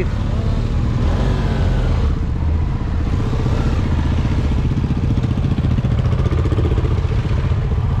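Motorcycle engine running steadily as the bike rides along, a continuous low drone with rapid, even firing pulses.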